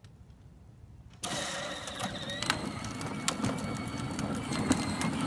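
Peg Perego John Deere XUV 12-volt kids' ride-on pulling away about a second in. Its electric drive motors and gearboxes whine steadily, and its plastic wheels rattle and click over the pavement.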